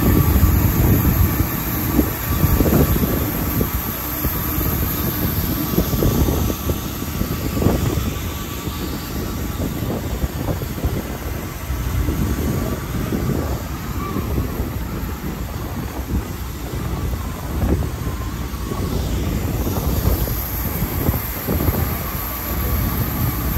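A passenger boat under way: a steady engine drone and the rushing of its wake along the hull, with wind buffeting the microphone in uneven gusts. A thin steady whine runs underneath.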